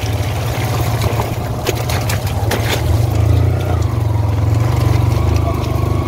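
Motorcycle engine running steadily while riding over a rough dirt track, with a cluster of sharp clicks and rattles about two seconds in.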